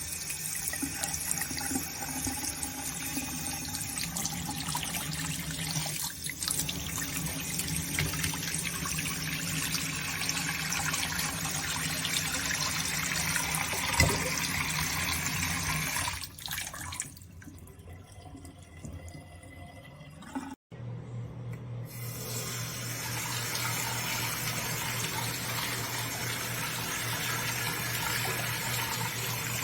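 Water running from a waterfall-spout bathroom sink faucet into the basin, a steady rush. The flow falls quieter about two thirds of the way in, breaks off briefly, then runs steadily again with a low hum underneath.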